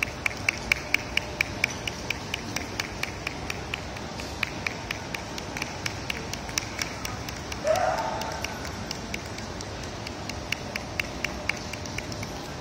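Quick, even clicking, about four to five clicks a second, in runs with short gaps. A single short, louder sound breaks in about two-thirds of the way through.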